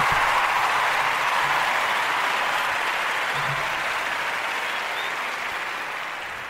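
Large crowd applauding, a steady wash of clapping that fades out over the last couple of seconds.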